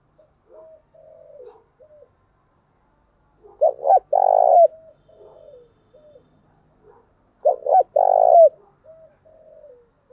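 Spotted dove cooing: two loud phrases about four seconds apart, each two short notes then a longer coo, with softer low coos in between. This is a recorded lure call used to draw wild spotted doves.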